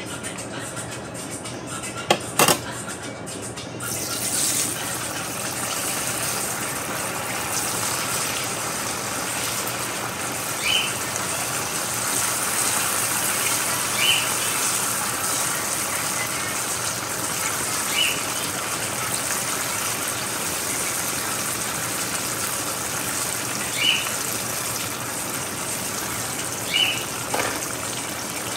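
Boiled cassava frying in hot oil in a pan: after a couple of sharp knocks about two seconds in, the oil sets up a steady, loud sizzle from about four seconds in.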